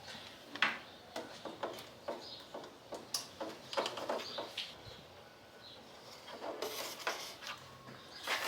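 Small plastic garage door opener unit being pushed and fumbled into a tight opening in a motorcycle's plastic dash: an irregular run of clicks, taps and scrapes, a pause of about two seconds, then more.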